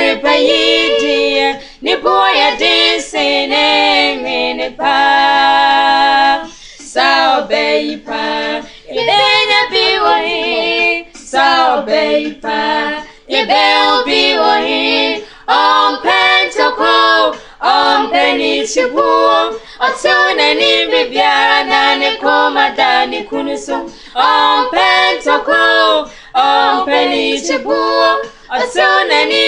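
Three women singing a song together without accompaniment, in phrases broken by short pauses, with a long held note about five seconds in.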